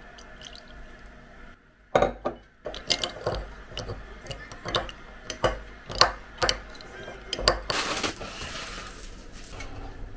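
A spoon clinking and scraping against a ceramic mug while stirring chocolate pieces into liquid, with about a dozen sharp clinks, after a soft pour into the mug at the start. Near the end comes a brief scraping noise.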